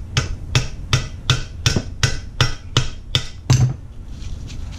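Hammer tapping repeatedly on a nut threaded onto the end of an 80cc two-stroke bicycle engine's gear shaft, driving the shaft out of the gearbox because its gear would not come off with a puller. About ten evenly spaced taps, roughly two and a half a second, stopping about three and a half seconds in.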